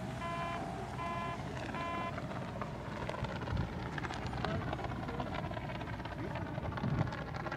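Three short electronic beeps, about one every second, end about two seconds in. Under them runs a steady rumble of wind and distant engine noise as a glider climbs away on a winch-launch cable.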